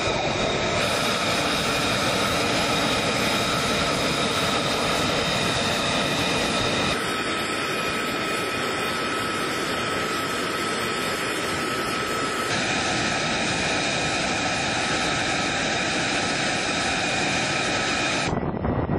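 Jet engines whining steadily on an airfield, a loud even rush with several high steady tones. The sound changes abruptly a few times as different shots are cut together.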